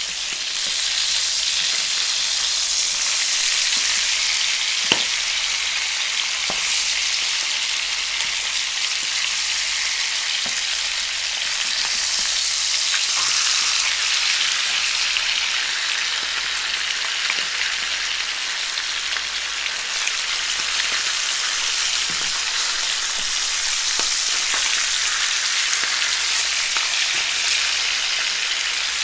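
Salmon steaks sizzling in butter and olive oil in a frying pan: a steady frying hiss, with a couple of light knocks about five seconds in.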